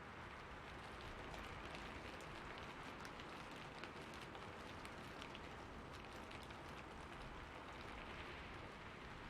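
Rain falling on a rooftop: a steady hiss of rainfall with many separate drop ticks scattered through it.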